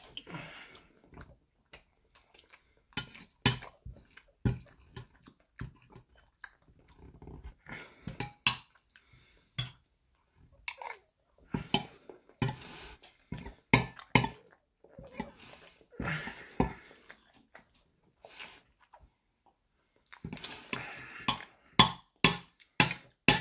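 Knife and spoon clinking and scraping on a plate, with close-up chewing and lip-smacking between the strokes.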